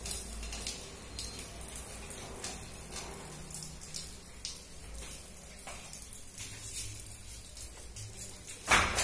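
Faint dripping and trickling of water at a diamond core drill barrel set in a wall, with scattered small ticks; one sharp knock near the end.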